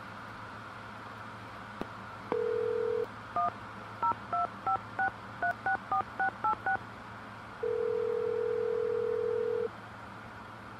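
Telephone call being placed. A click as the handset is lifted, a short dial tone, about eleven touch-tone keys pressed in quick succession, then one long ringing tone as the line connects.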